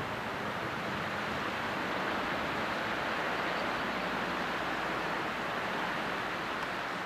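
Hot-spring overflow water from West Flood Geyser rushing and splashing down a shallow runoff channel, a steady hiss of running water; the geyser is in overflow, not erupting.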